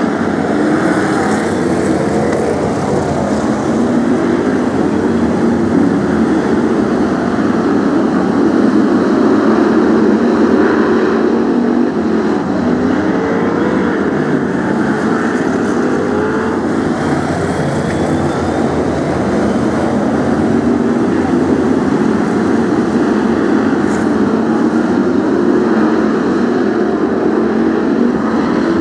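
A pack of BriSCA F1 stock cars' V8 engines running together as they lap the oval: a loud, continuous engine noise whose revs keep rising and falling.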